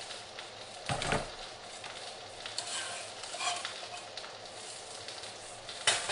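A utensil scraping sautéed kale and mushrooms out of a pan into a glass bowl of cauliflower mash, with small scrapes and clicks and a sharper knock about a second in and again near the end.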